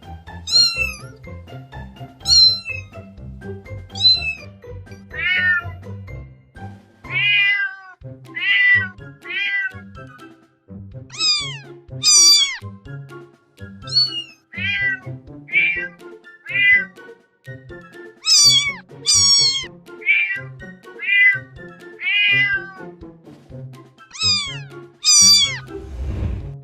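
A cat meowing again and again, about twenty short meows that each fall in pitch, some high and sharp, over quiet background music.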